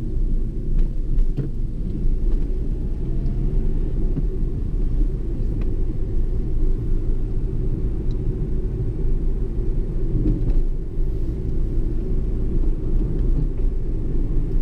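Renault car heard from inside the cabin while driving along: a steady low engine and road rumble.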